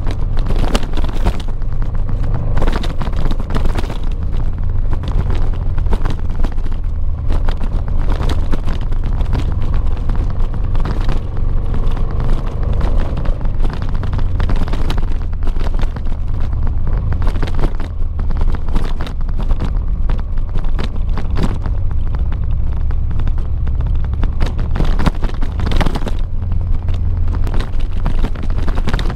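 Honda XL700V Transalp's V-twin engine running as the motorcycle rides a gravel track. A loud, heavy low rumble of wind buffeting the microphone covers it, with frequent knocks and rattles from the rough surface.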